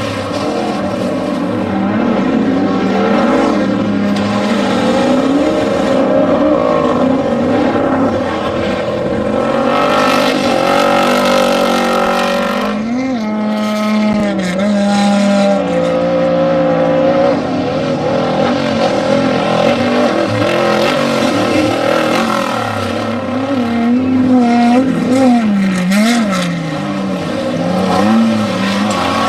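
Off-road desert race vehicle engines running loud under throttle, their pitch rising and falling repeatedly as the drivers accelerate and lift.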